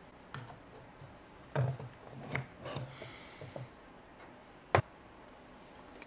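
Espresso tamper pressing ground coffee in a stainless steel bottomless portafilter: a series of small clicks, knocks and scrapes of the tamper against the basket, then one sharp click about three-quarters of the way through.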